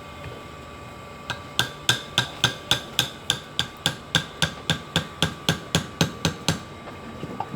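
Rapid, even hammer taps, about twenty in a row at nearly four a second, each with a short metallic ring.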